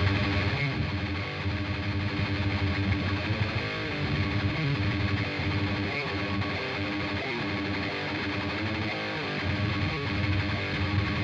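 Electric guitar tuned to low D, played direct into the Brainworx Mega Dual amp-simulator plugin, a model of a Mesa Boogie Dual Rectifier amp: sustained chords and riffing.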